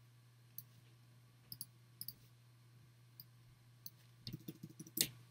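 Computer mouse clicking: single clicks spaced out at first, then a quick run of clicks about four seconds in and the loudest click near the end. A steady low hum runs underneath.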